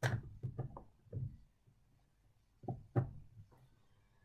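Small, sharp knocks and clicks from tools and metal parts of a model train being handled while a bolt is worked loose: a quick cluster at first, then two more strikes about three seconds in.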